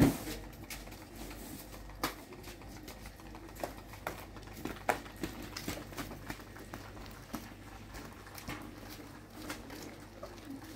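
Scattered light clicks and taps at an irregular pace, a few a second, over a low steady background.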